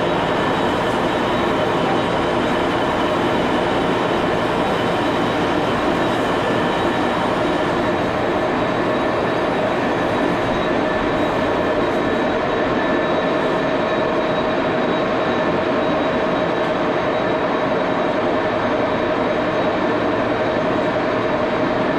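Baby Axelson engine lathe running under power while a tool turns down an aluminum bar, a steady mechanical hum with a constant whine and the noise of the cut.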